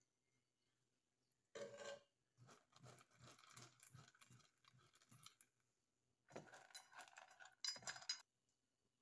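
Quiet clinks and rustling as cooked vegetables are mixed and pressed by hand in small stainless steel bowls, in three short spells with pauses between.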